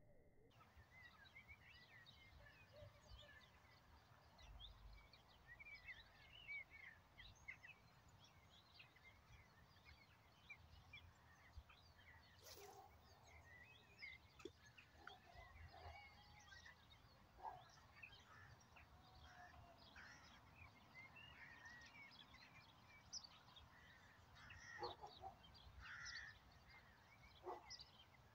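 Faint birdsong: many small birds chirping and warbling throughout, with a few lower calls near the end, over a low rumble. One sharp click about twelve seconds in.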